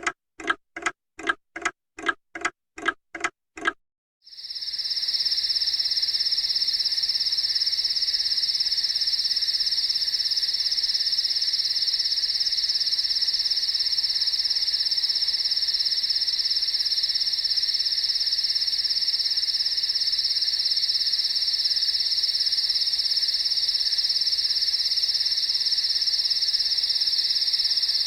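A clock ticking briskly, about three ticks a second, stops about four seconds in. A dense, steady night chorus of crickets then swells up and continues.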